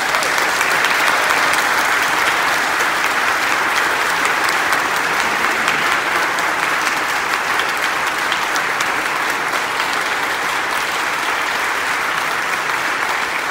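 Congregation applauding: steady, sustained clapping from many people, easing off slightly near the end.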